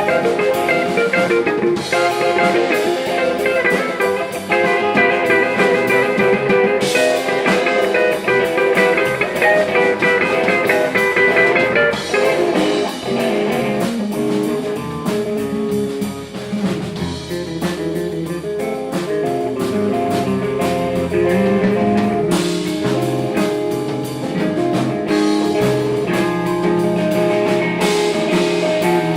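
Guitar-led rock music with drums, at a steady loud level.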